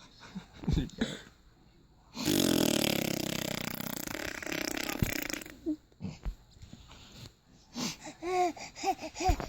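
A person making a long blown fart noise with the mouth, a rough buzzing sound lasting about three seconds, followed near the end by a baby's short bursts of laughter.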